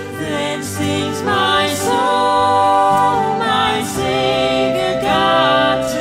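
Female and male voices singing a hymn chorus in harmony, accompanied by violin and Irish whistle.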